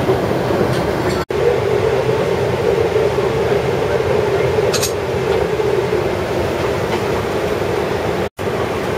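Steady rumble and hiss of a Boeing 777-300's passenger cabin while the airliner stands at the gate: air-conditioning and aircraft systems noise. The sound cuts out completely for an instant twice.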